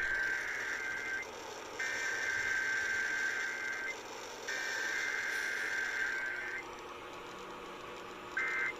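Emergency Alert System digital header tones broadcast over AM radio: three raspy, buzzy data bursts of about two seconds each, separated by short pauses. Near the end a shorter burst starts, the beginning of the end-of-message code.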